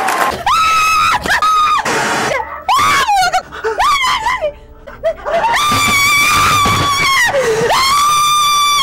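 A woman screaming in fright: several short cries, then from about halfway two long, high held screams.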